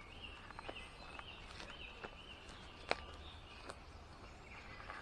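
A songbird singing faintly, a run of short repeated whistled notes about two a second, with scattered sharp clicks and snaps, one louder near the middle.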